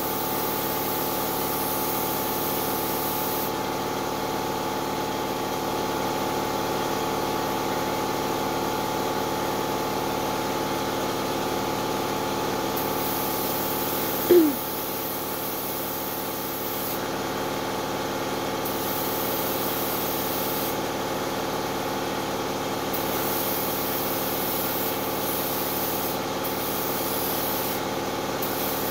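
Air compressor running steadily, with the hiss of a gravity-feed spray gun coming in on-and-off stretches as primer is sprayed lightly onto a clear polycarbonate RC car body. A brief, loud falling squeak about halfway through.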